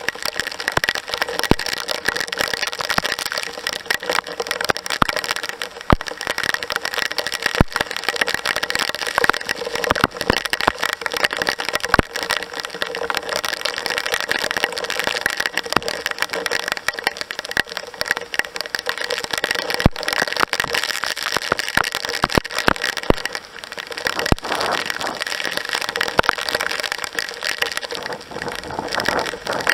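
Heavy rain pouring down steadily, with frequent sharp ticks of drops striking close by.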